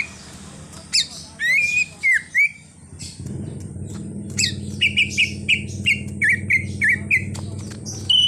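Cucak ijo (green leafbird) singing: whistled notes and quick pitch sweeps, then a run of about a dozen short chirps at roughly two to three a second. A low steady hum starts about three seconds in.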